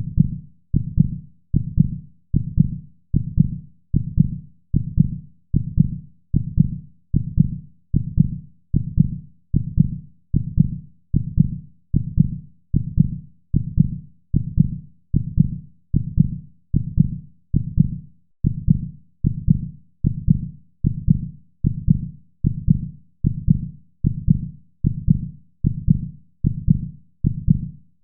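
A heartbeat's lub-dub, each beat a pair of soft low thuds, repeating evenly about once a second without change.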